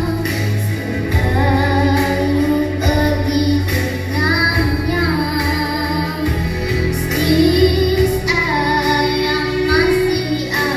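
A young female voice singing a high, powerful melody, holding long notes with vibrato and running through quick ornamented passages about four and eight and a half seconds in, over a backing track with bass and a steady beat.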